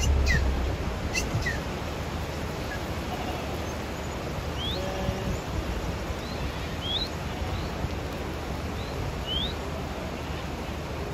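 Steady outdoor noise from a large herd of goats moving along a paved road, with a few short rising bird chirps, about four and a half, seven and nine and a half seconds in.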